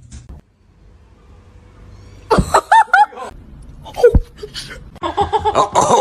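People laughing: a few short high-pitched bursts about two seconds in, then a single falling cry, then continuous rapid laughter from about five seconds on.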